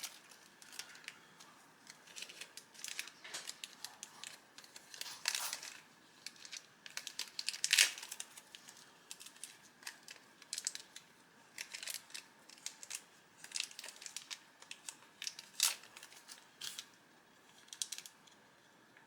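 Thin plastic packaging crinkling and crackling as it is handled and pulled off a small figure, in short irregular bursts with scattered clicks, loudest about eight seconds in.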